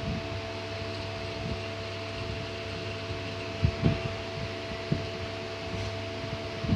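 CNC lathe running with a steady mechanical hum made of several fixed tones, with a few short low knocks in the middle and near the end.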